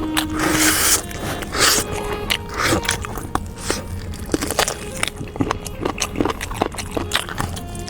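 Close-up eating sounds: a person biting, gnawing and chewing meat, a run of short crunches, snaps and wet smacks, busiest in the first second or so.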